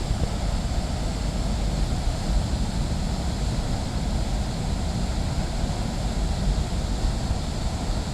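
Waterfall rushing: a steady, unbroken roar of falling water with a strong low rumble.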